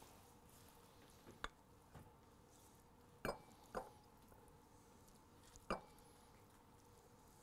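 A few faint, sharp taps and clinks, about five in all, as a glass mixing bowl and a silicone spatula knock against a ceramic serving bowl while salad is scraped out. Otherwise near silence.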